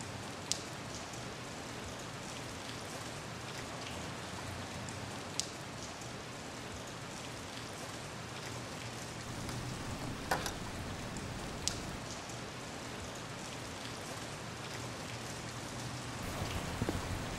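Steady rain falling on grass and vegetation, with a few sharp single ticks standing out from the patter.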